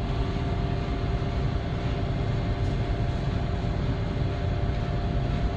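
Steady low drone of a ship's machinery heard on the bridge while under way: a deep engine rumble with a constant hum and a hiss of ventilation.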